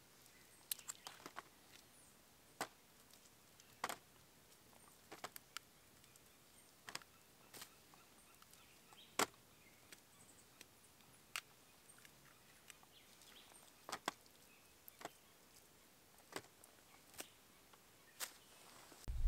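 Irregular light clicks and taps from hands working an opened cacao pod, pulling out its wet, pulp-covered seeds and dropping them onto banana leaves. There is no steady sound, only scattered short handling noises.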